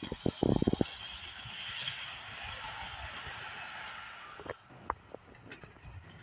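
Model railway locomotive running along the track. A quick run of loud clicks comes about half a second in, then a steady hiss of the running train, with a few sharp clicks near the end.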